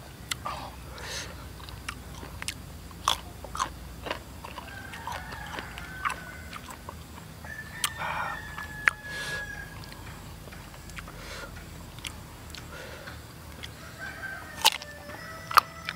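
Crisp crunching as slices of young, unripe mango are bitten and chewed, a string of sharp crackles with the loudest bites near the end. Birds call faintly in the background with a few drawn-out notes around the middle.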